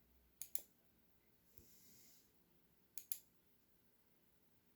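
Two quiet computer mouse clicks about two and a half seconds apart, each a quick double tick of press and release, with a faint soft breath between them.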